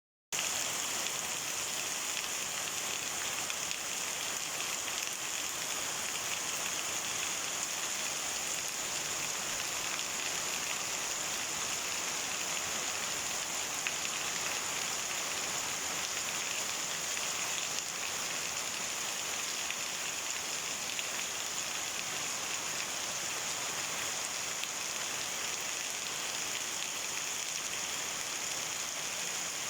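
Heavy, steady downpour of rain: an even, unbroken hiss that starts abruptly a moment in.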